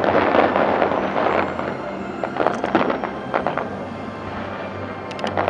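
Fireworks going off: a dense spell of crackling at the start, then a series of sharp bangs and pops through the middle, and a quick cluster of cracks near the end.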